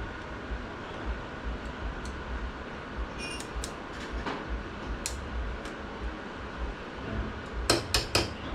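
Light metal clicks and taps as a snap ring is worked into its groove on AOD transmission internals, with a quick run of sharper clicks near the end. A low background rumble runs underneath.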